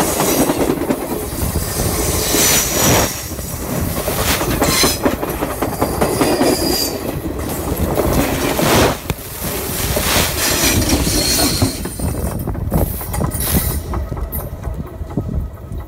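Railroad cars rolling directly overhead, heard from between the rails. The wheels rumble and clatter with a heavy beat every second or two, and there are brief high wheel squeals. The sound thins and eases near the end as the last car clears.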